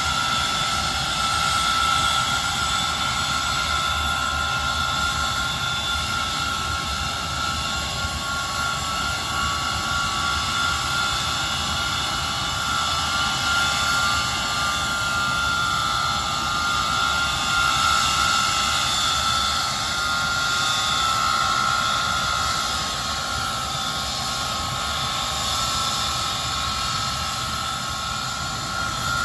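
Avro Vulcan XM655's Rolls-Royce Olympus turbojet engines running steadily on a ground run, a high whine over a rushing roar.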